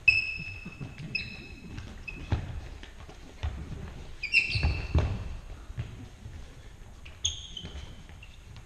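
Sports shoes squeaking in short, high chirps on a wooden gym floor, with dull thumps of feet and bodies, as two fighters move and clinch in sparring. The loudest squeaks come at the start, about four seconds in and about seven seconds in.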